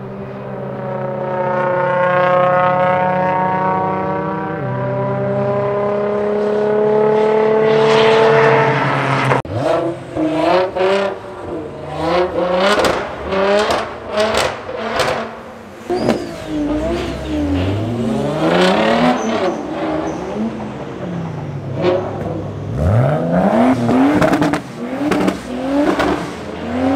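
A car engine running on the circuit, its note climbing steadily for about nine seconds as it accelerates. Then, after a cut, a car revving hard in a tunnel: a run of quick throttle blips, followed by several long climbs in revs that echo off the tunnel walls.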